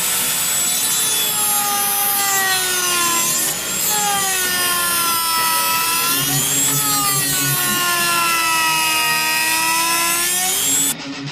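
Dremel rotary tool grinding into the plastic of a dash console. It starts abruptly, and its high whine sags and recovers in pitch as the bit loads up. It briefly eases off about three and a half seconds in and stops suddenly near the end.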